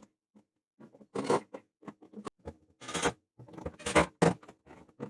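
Irregular handling noises: a run of sharp knocks, clatters and rustles, loudest a little after one second and around four seconds in, as wooden furniture parts are handled and fitted during reassembly.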